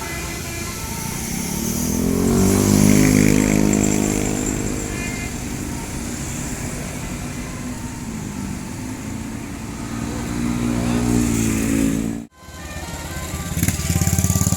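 Road vehicle engines passing close by, each swelling in pitch and loudness and then fading, twice. The sound cuts out abruptly near the end, then another engine is heard close by.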